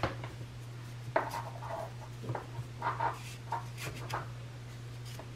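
Soft rustling and rubbing of cloth and cord, several short scrapes in a row, as a cord is pulled to turn a narrow fabric tube into a spaghetti strap. A steady low hum runs underneath.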